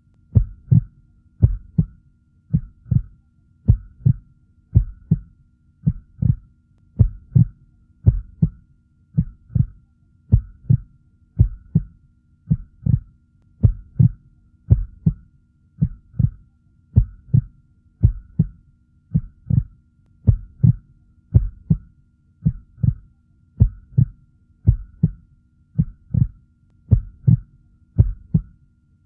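Heartbeat sound effect: a steady, slow lub-dub, each beat a pair of low thumps, repeating about once a second. A faint steady hum lies beneath.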